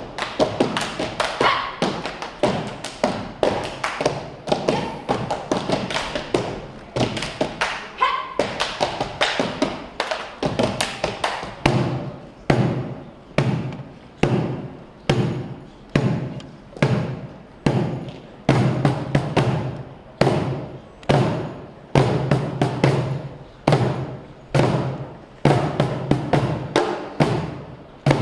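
Tap shoes striking a stage floor in fast rhythmic patterns over music. About twelve seconds in, the taps settle into strong accented strikes roughly once a second, with quicker taps between them.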